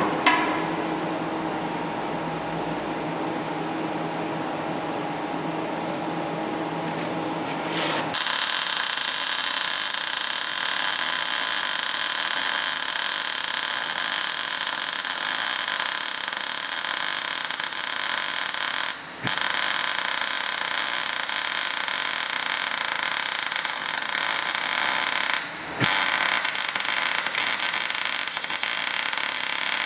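MIG welder arc crackling and hissing as steel is welded. It starts abruptly about eight seconds in and runs on with two short breaks in the bead, after a steady lower hum in the first seconds.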